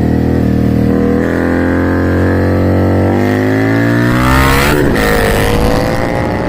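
2018 Indian Scout Bobber's V-twin engine running through a Freedom Performance 2-into-1 Combat exhaust, accelerating hard. The pitch climbs steadily, drops sharply about five seconds in, then climbs again, as on an upshift.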